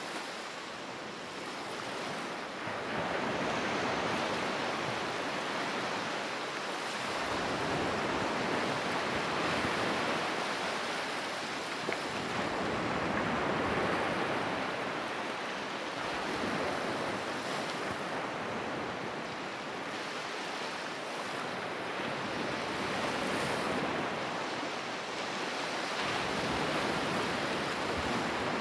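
Ocean surf washing onto a sandy beach: a steady rush that swells and eases every few seconds as waves come in.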